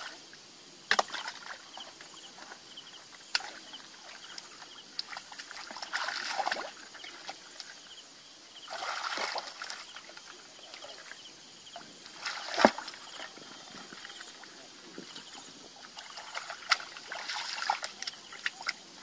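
Hands sloshing and splashing through shallow muddy water while groping for fish, in short bursts, with scattered sharp clicks and one louder knock about two-thirds of the way through.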